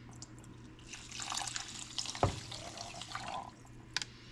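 Chicken stock being poured into a baking dish of rice and condensed soup: a splashing pour starting about a second in, a sharp knock partway through, then a brief glug and a click.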